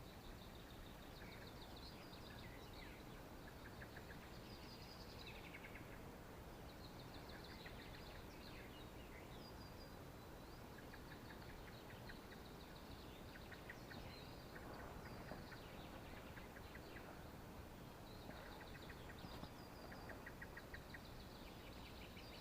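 Faint woodland songbirds chirping and trilling, in short repeated phrases from several birds, over a low steady background hiss.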